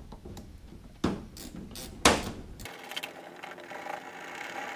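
Knocks and clunks of plastic plumbing fittings and hose clamps being handled against an aluminium livewell, the loudest about two seconds in, then a faint steady mechanical whir.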